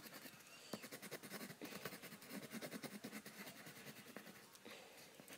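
Green coloured pencil scratching on paper in rapid, short back-and-forth strokes as a drawing is coloured in, faint.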